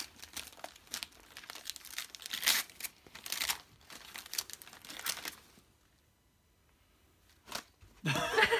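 Gift wrapping paper being torn and crinkled by hand as a present is unwrapped: quick runs of ripping and rustling for about five seconds, then a short pause. A voice breaks in near the end.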